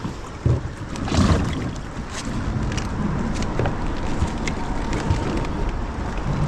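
Wind buffeting the microphone over moving creek water, with a few knocks and scrapes as a kayak is hauled past an obstruction; the loudest knocks come about half a second and about a second in.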